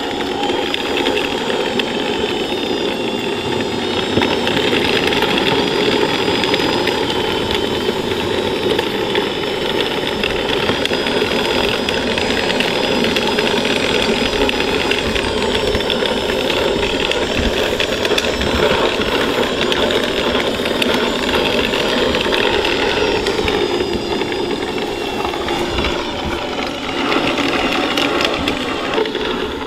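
1/6-scale Armortek Tiger I chassis driving over grass: its electric drive motors and gearboxes whine steadily over a continuous clatter of the metal track links. The tracks, shortened by a link a side and re-tensioned, run without slack.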